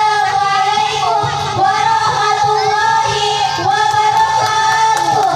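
Music with a high voice singing a melody in long held notes that slide from one pitch to the next.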